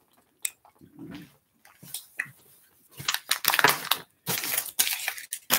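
Plastic candy wrapper crinkling as it is handled and opened, a dense run of crackles in the second half, after a few faint clicks.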